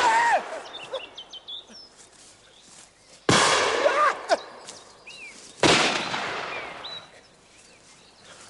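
Three hunting-gun shots: one right at the start and two more about three and five and a half seconds in. Each is a sudden crack with a long echoing fade.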